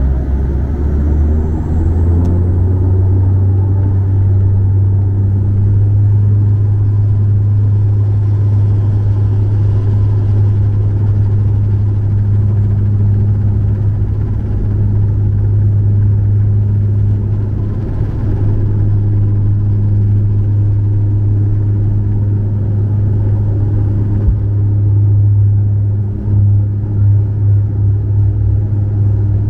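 Bombardier DHC-8 Q400 turboprop heard from inside the cabin: its six-blade propellers give a loud, steady, low drone. About a second in, the drone steps up in pitch and level as engine power is increased. Near the end the level wavers slightly.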